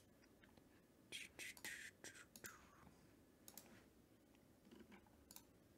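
Near silence broken by a few faint computer-mouse clicks and some soft, short hissy noises about a second in.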